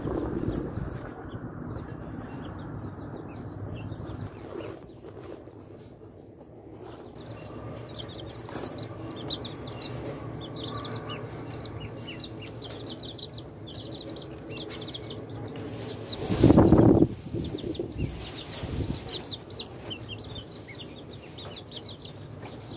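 Chicks and ducklings peeping in many short, high chirps, over a steady low background hiss. About two-thirds through comes a brief loud rustling thump.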